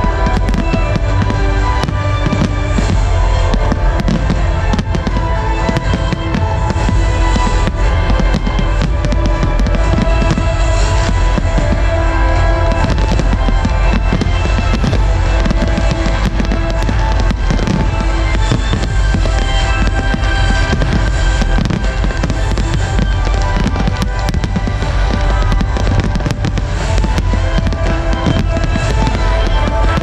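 Fireworks display at full barrage: shells bursting one after another with heavy booms and dense crackling, over loud music with sustained notes.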